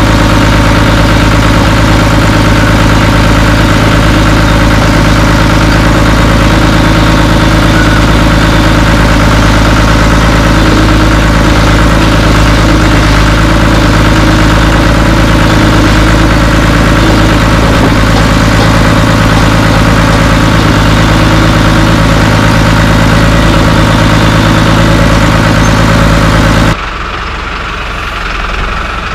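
Cat D3C dozer's diesel engine running loudly at a steady speed, then suddenly much quieter a couple of seconds before the end.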